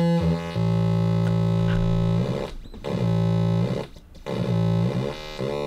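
Breadboard Atari Punk Console, two 555 timer chips fitted with a 100K and a 1-meg potentiometer, putting out a square-wave synth tone. The pitch holds, then jumps to new notes and wavers as a pot is turned, cutting out briefly twice along the way.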